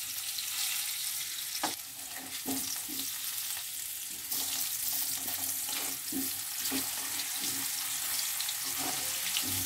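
Potato chunks frying in oil in a metal kadai, sizzling steadily. A metal spatula scrapes and knocks against the pan about once a second as the potatoes are turned to brown them.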